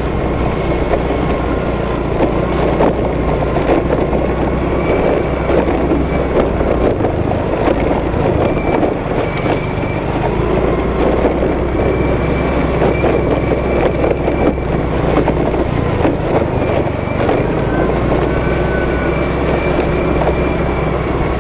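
Motor scooter engine running while riding, with wind rumbling on the microphone; the deep rumble drops away briefly twice.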